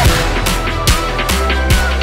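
Background music with a steady, heavy beat: a deep drum hit a little more often than once a second over sustained bass and a high melodic line.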